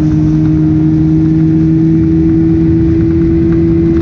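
Outboard motor running steadily at speed, pushing an aluminium jon boat, its pitch holding and creeping slightly higher, over the rush of wind and water along the hull.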